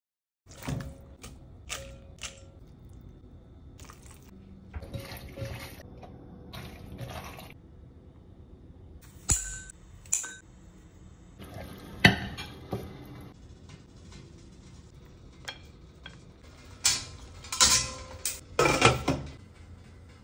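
A run of kitchen food-prep sounds: dishes and utensils clinking, liquid being poured or splashed, and a couple of sharp snips about ten seconds in as kitchen scissors cut dried red dates.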